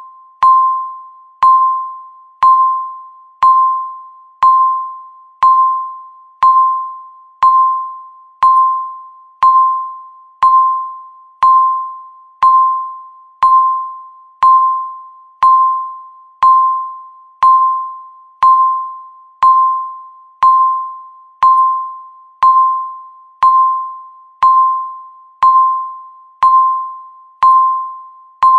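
Countdown timer beeping once a second, each beep marking one second left: a single electronic mid-pitched tone, struck sharply and fading away before the next.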